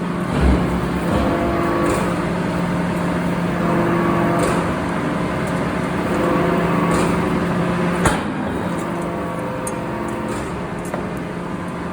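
Heavy factory machinery running with a steady, droning hum that swells and eases every few seconds, with a low thump just after the start and a sharp knock about eight seconds in.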